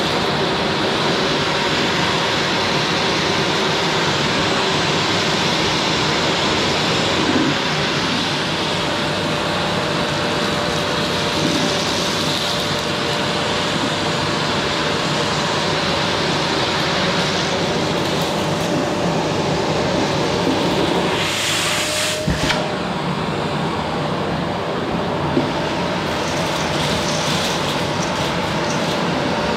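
Qilive vacuum cleaner running steadily as its nozzle works over a sofa, a constant rushing of air with a faint steady whine. About three quarters of the way through, a brief higher hiss ends in a click.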